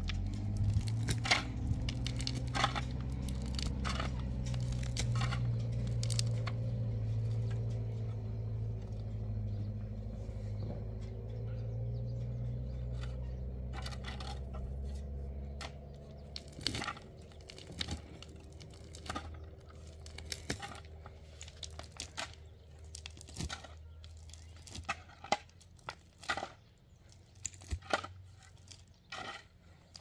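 A shovel digging and scraping into dry, stony soil, a string of short crunching strokes with gravel clinking. A low steady hum sits beneath for the first half and fades out about halfway through.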